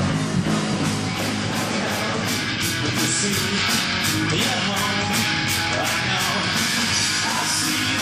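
Rock band playing live: electric guitar over drums, with cymbal strokes about three times a second.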